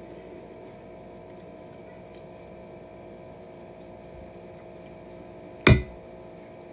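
A plastic fork strikes a plate once, sharply, near the end, with a brief ring. Before it there are only a few faint clicks over a steady hum.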